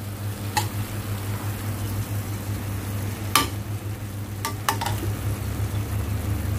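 Diced chicken breast sizzling in a frying pan with a little added water while being stirred with a spatula, which clicks against the pan a few times, over a steady low hum.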